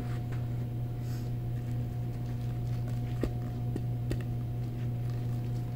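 Steady low hum of an indoor batting facility, with three light taps a little past halfway through.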